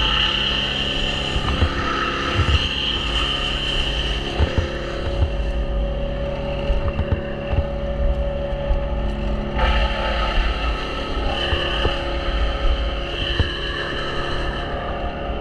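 Small engine running steadily, with scattered knocks. Its higher note fades about six seconds in and comes back sharply nearly ten seconds in.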